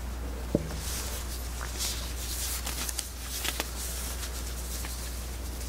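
Quiet room tone with a steady low hum and a few faint clicks and rustles.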